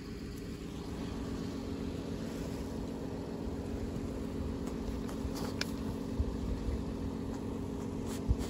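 Steady low hum of an idling engine, with a soft thump near the end.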